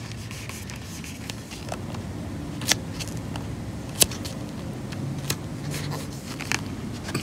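Hands pressing and smoothing vinyl leatherette onto a glued rail, with faint crackles and two sharp clicks, one about a third of the way through and a louder one just past halfway, over a low steady hum.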